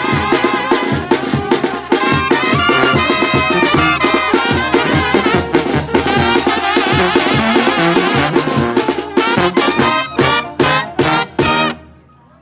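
Mexican banda, a brass band with trumpets, trombones and drums, playing at full volume. Near the end it plays a string of short, accented full-band hits, then cuts off suddenly as the piece ends.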